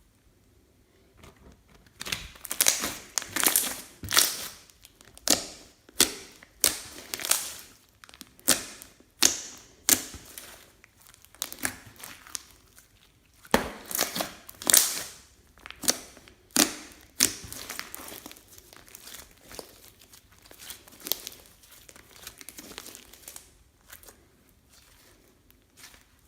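Clear slime being squeezed and stretched by hand, giving a run of wet crackling pops, one or two a second. The pops start about two seconds in and grow fainter in the last several seconds.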